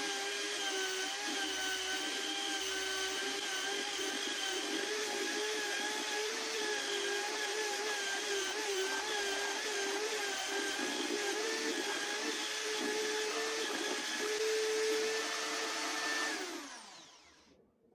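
An electric drill driving a sanding disc in a homemade disc-sander jig runs at steady speed, its motor whine wavering slightly as a pine piece is pressed against the disc. Near the end it is switched off and the pitch falls as it spins down.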